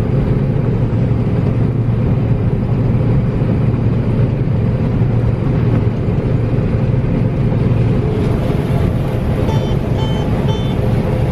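Heavy farm machine's engine running steadily with a deep hum. Three short electronic beeps sound near the end.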